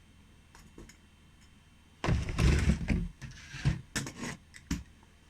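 A tape measure being handled and its end hook caught on a screw: a scuffing, rustling rush about two seconds in, then several sharp knocks and clacks.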